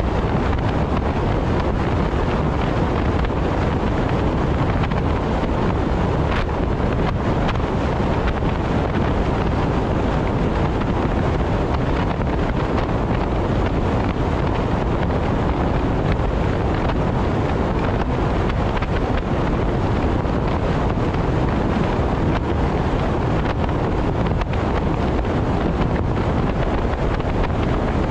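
Steady wind and road noise of a car driving at expressway speed, a constant rush with no engine note or changes standing out.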